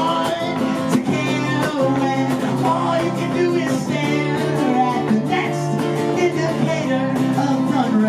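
A man sings a song while strumming chords on an acoustic guitar.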